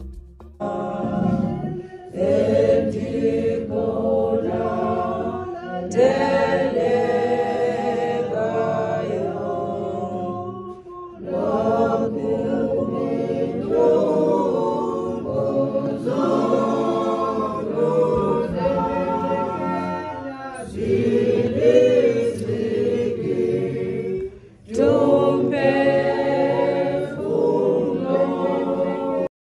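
A group of voices singing together without instruments, in phrases with short breaks about eleven and twenty-four seconds in. The singing cuts off suddenly at the end.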